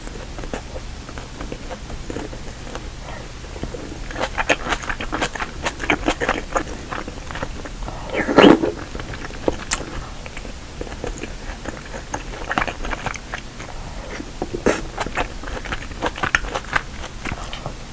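A person chewing and biting braised kimchi stew close to the microphone, with quick, wet clicking mouth sounds in bursts. There is one louder, lower sound about halfway through.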